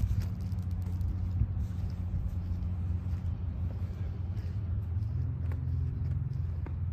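A low, steady engine hum, its pitch shifting slightly about five seconds in.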